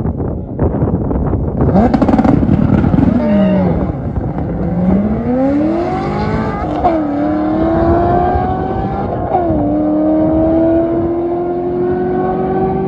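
Drag-racing vehicles launching and pulling away at full throttle. The engine pitch climbs steadily through each gear and drops at shifts about three and a half, seven and nine and a half seconds in.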